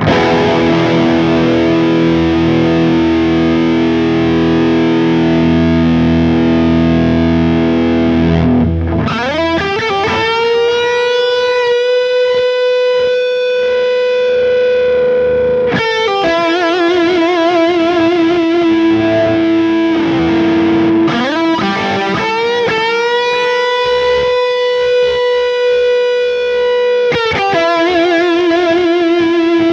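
Old Charvel electric guitar played through distortion, showing off its sustain. A chord is struck and rings for about eight seconds. Then come long single notes, each bent up and held for several seconds with vibrato.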